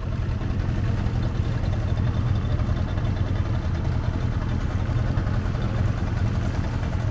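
An engine running steadily at a constant low hum.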